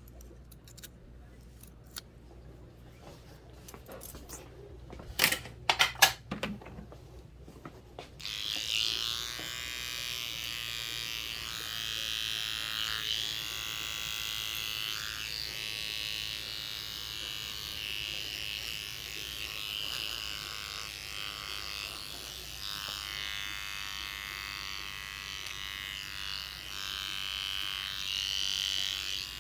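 A few sharp clicks and knocks, then electric hair clippers switched on about eight seconds in, buzzing steadily as they work through hair.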